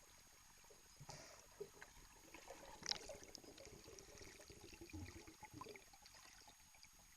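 Faint, muffled underwater clicks, scrapes and gurgles, with a sharper click about three seconds in.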